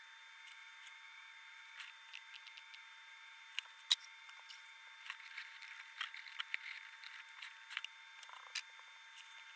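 Sphodromantis praying mantis chewing on a locust: faint, irregular crackling clicks, bunched from about three and a half to eight and a half seconds in, the loudest a sharp click about four seconds in, over a faint steady hum.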